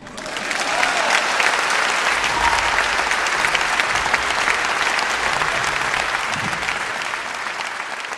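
Audience applauding: many hands clapping, swelling in the first second, holding steady, then slowly fading near the end.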